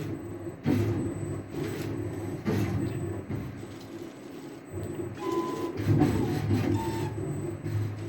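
CNC router's axis drive motors whining as the machine runs through a programmed path, the tone shifting with each new move. Brief higher tones come in about five and seven seconds in.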